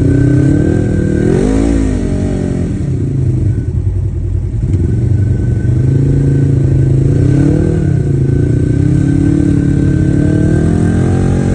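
Polaris RZR 1000 side-by-side's 999 cc parallel-twin engine revving up and down again and again as it spins its tyres, stuck in a mud hole. The revs peak about a second and a half in and again around seven seconds, then climb near the end.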